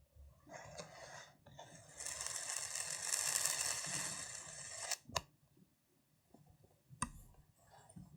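Hand-made crackling: a short crackle, then a dense, loud crackle lasting about three seconds, followed by two sharp taps or clicks a couple of seconds apart.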